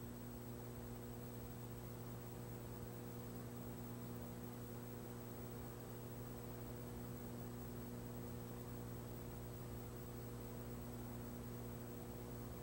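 Steady electrical mains hum with faint hiss, unchanging throughout; no track or crowd sound comes through.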